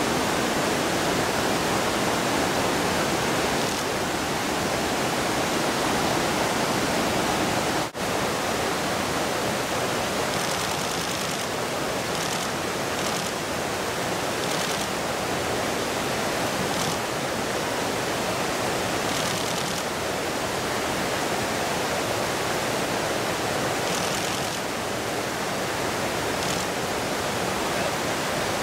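Steady rush of fast-flowing river water, with a momentary break in the sound about eight seconds in.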